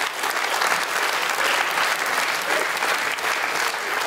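Theatre audience applauding, a steady dense clapping throughout.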